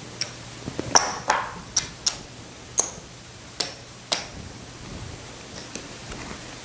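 Casino chips clicking against each other as they are counted out and stacked on a craps table: about nine sharp, separate clicks with a short bright ring, thinning out after about four seconds.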